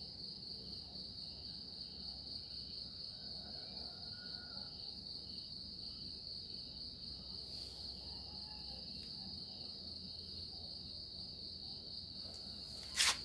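Insects trilling steadily in the background, one high unbroken tone with faint, evenly pulsing chirps beneath it. A single sharp knock comes near the end.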